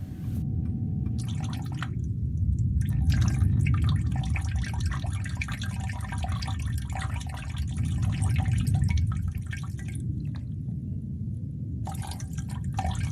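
Water dripping and trickling over a steady low rumble; the dripping stops for about two seconds near the end, then starts again.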